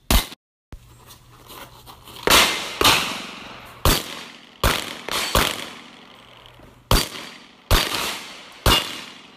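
Semi-automatic pistol shots: about nine sharp cracks at uneven intervals of half a second to a second and a half, each trailing off in an echo.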